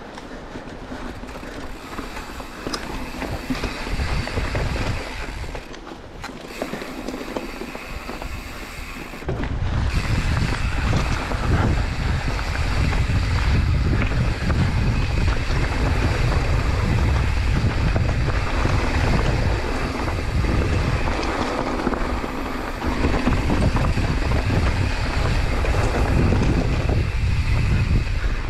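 Mountain bike ride: wind buffeting the microphone over the noise of tyres rolling on a dirt trail, with the low wind rumble getting much louder about a third of the way in.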